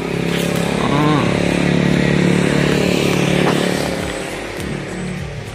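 A motor vehicle's engine passing by, growing louder, peaking, then fading away.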